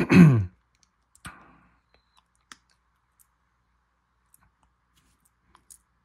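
A spoken word ends, then a short breath about a second in, followed by a handful of faint, sharp clicks spread through the rest.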